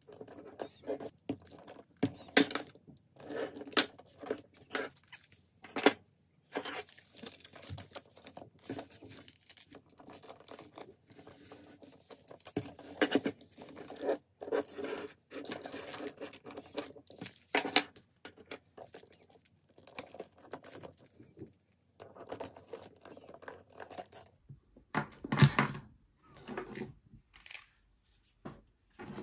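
Handling noise from a leather handbag and its straps: metal swivel clasps clicking onto the bag's rings, hardware jingling and leather rustling in irregular bursts. A louder, deeper knock comes near the end.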